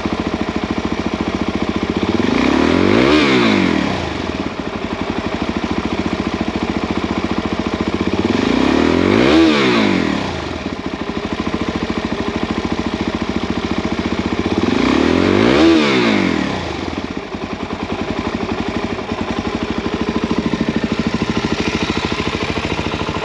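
2017 Suzuki DR-Z400SM's single-cylinder engine through a full Yoshimura exhaust, idling and blipped three times, about six seconds apart, each rev rising and falling back to idle.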